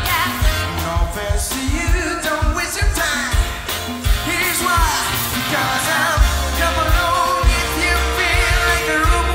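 Live big band music: a lead melody line with vibrato over a steady drum beat and bass.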